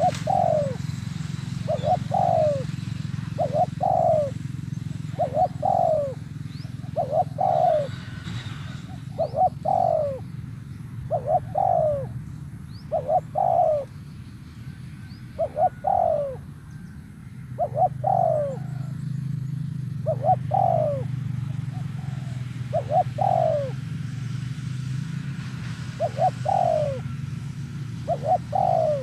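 Spotted dove cooing: short falling coos repeated every second or two, often in pairs, the dove call used to provoke a wild dove into answering.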